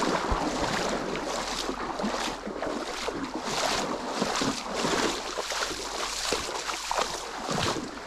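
Legs wading through a shallow muddy river, water splashing and sloshing with each stride at a steady walking pace.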